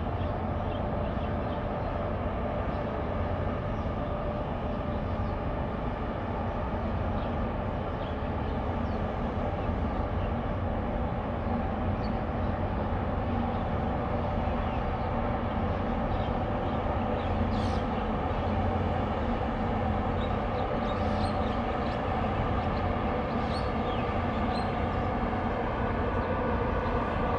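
Steady low rumble and hum of a large bulk carrier's engines and machinery as the ship passes close by, with a few faint short high chirps over it.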